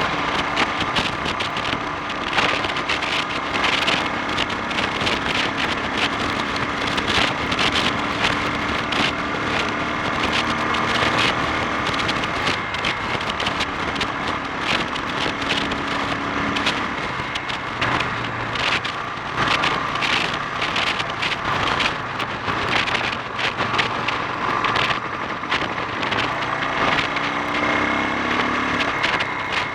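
Honda XL 350 single-cylinder four-stroke motorcycle engine running under way, with irregular crackling and rushing noise over it throughout. The bike has a reported splutter and bogging under acceleration.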